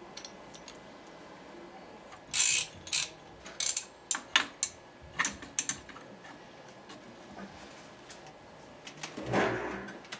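Click-type torque wrench with a barrel nut wrench on its head, clicking in several short runs of sharp ratchet-like clicks as it is set to about 500 inch-pounds and fitted onto the AR-15 barrel nut. A softer, longer rubbing noise follows near the end.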